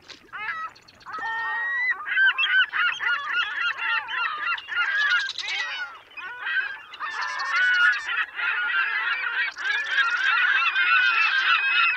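A large flock of birds calling over one another: many short calls that bend up and down in pitch, overlapping in a continuous, loud chorus.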